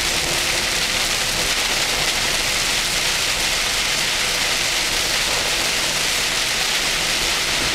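Heavy downpour on a moving vehicle, heard from inside: a steady hiss of rain on the roof and glass with a low road rumble underneath.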